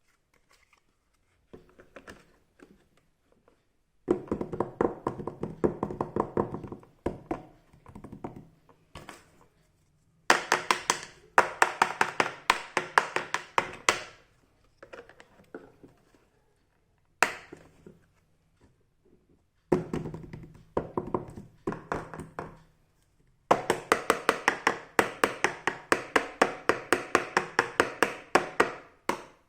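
Runs of rapid light taps and clicks, about five a second, in several bursts with pauses between, from small plastic toy kitchen pieces being handled and tapped together.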